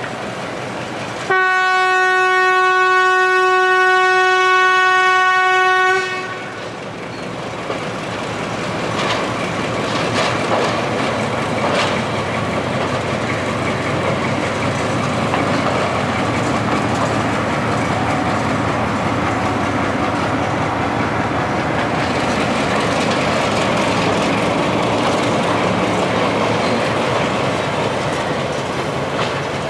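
Hitachi-built Class M5b diesel locomotive sounding one long, steady horn blast of about four and a half seconds. The horn stops, and the locomotive's engine runs on as it rolls past, its wheels clicking over the rail joints.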